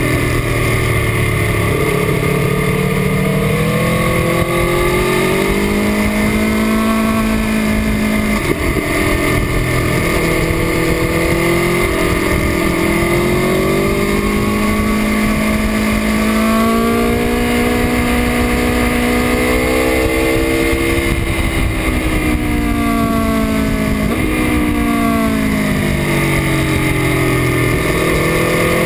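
2018 Aprilia Tuono RR's V4 engine at racing speed on track, its pitch climbing hard under acceleration, stepping down at gear changes and dropping off under braking, over and over through the corners.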